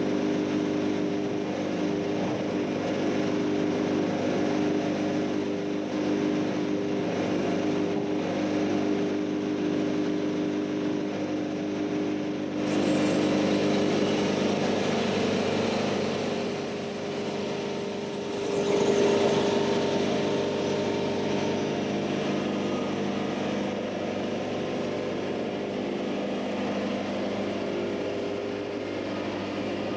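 Heavy diesel machinery engine running steadily, with a burst of broader noise setting in about twelve seconds in and a swell in level around nineteen seconds, as the machine comes under load.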